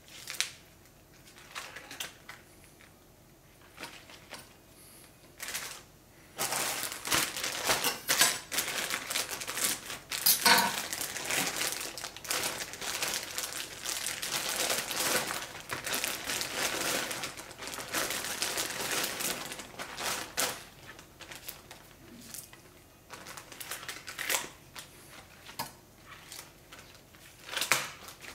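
Thin plastic produce bag crinkling as green onions are handled and pulled out of it, dense and continuous from about six seconds in to about twenty seconds. Before and after, scattered light rustles and taps.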